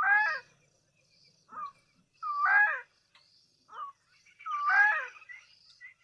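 A wild animal calling: three harsh, pitched calls about two and a half seconds apart. Each of the later two comes after a short faint note.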